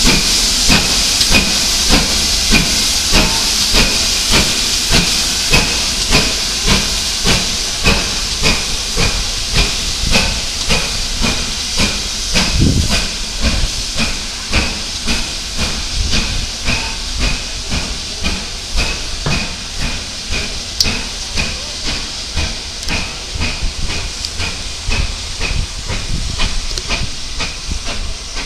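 GWR Hall class two-cylinder 4-6-0 steam locomotive 4965 Rood Ashton Hall pulling away with its train. Its rhythmic exhaust chuffs quicken over a loud hiss of steam, and both fade as it draws away.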